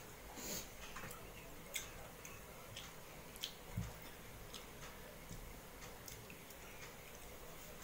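Faint, irregular clicks and soft taps of eating rice by hand from a steel plate, fingers working the rice against the plate while chewing, with one soft thump about four seconds in.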